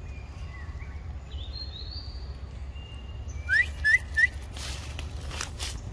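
A bird calling: faint thin whistled notes, then three quick rising whistles about three and a half seconds in, the loudest sound. A few soft clicks or rustles follow near the end.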